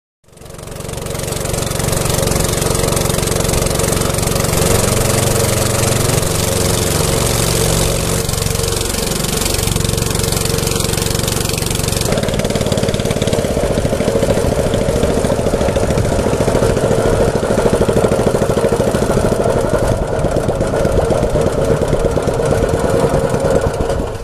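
Small wooden boat's motor running steadily under way. It fades in at the start, and its tone shifts abruptly about halfway through.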